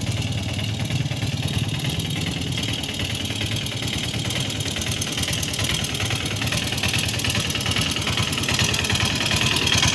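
Auto rickshaw's small engine running steadily with a rapid, even chugging as the three-wheeler drives slowly.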